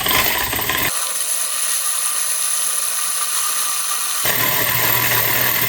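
Electric drill running steadily, spinning a 3D-printed filament respooler in reverse to wind filament onto a spool. The deeper part of the sound drops out about a second in and comes back after about four seconds.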